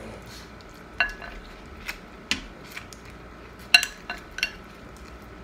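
A metal spoon clinking against a bowl: several sharp, ringing clinks at irregular intervals, the loudest about four seconds in.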